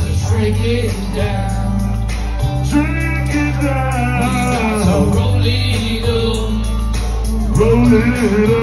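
Loud live music through a venue's PA, recorded from within the crowd: the rap song's backing track with a heavy bass line and a sung melody over it.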